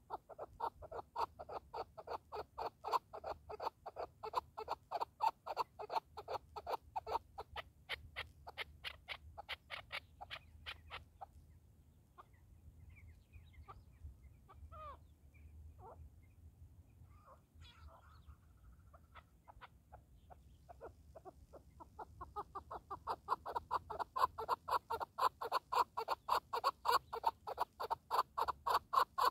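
Chukar partridge calling: a fast, even series of clucking chuk notes, about four a second, that stops about 11 seconds in and starts again about 22 seconds in. In the gap only a few faint, thin calls are heard.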